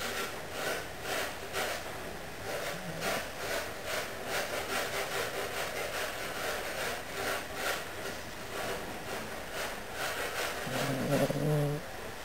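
Sleeping English Cocker Spaniel breathing through its nose in quick, even puffs while it dreams, about two a second. Near the end the dog gives a brief low vocal sound.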